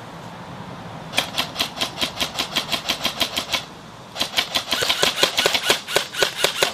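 Airsoft electric rifle (AEG) firing two long full-auto bursts, each a fast, even string of sharp clicks at about eight shots a second, with a short pause between them.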